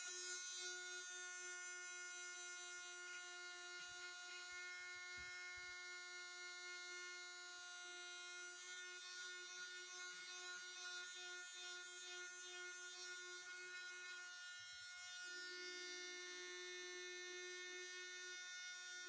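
Small electric power sander running steadily with a buzzing whine, its pitch shifting slightly as it works on the wooden hull.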